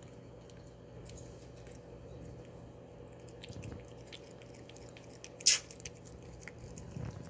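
Siamese cat licking and chewing at a treat held out on a blue stick: soft, wet little clicks of tongue and mouth, with one short, sharp noise about five and a half seconds in.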